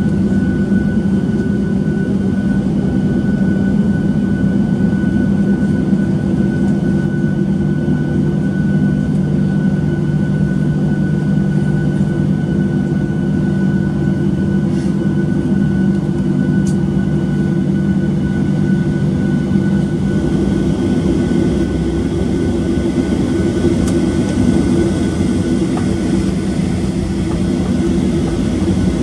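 Boeing 737-700's CFM56-7B jet engines at taxi power, heard inside the cabin: a steady low drone with a thin, steady whine above it.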